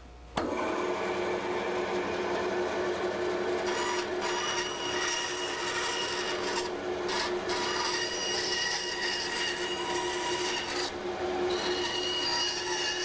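Wood-cutting bandsaw switched on about half a second in, then running with a steady hum and whine while relief cuts are sawn into a workpiece. The higher cutting sound drops out briefly a few times between cuts.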